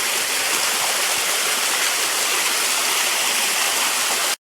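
Small cascading waterfall splashing steadily over rock at a light flow, the water missing the rocks as it falls. The sound cuts off abruptly near the end.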